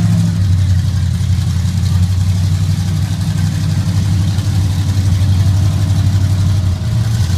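Large monster truck engine running at a steady low idle, with a brief dip and a slight rise in pitch near the end.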